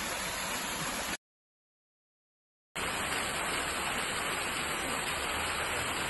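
Steady rushing of a waterfall pouring into a rock pool. It cuts out for about a second and a half a second into the sound, then comes back the same.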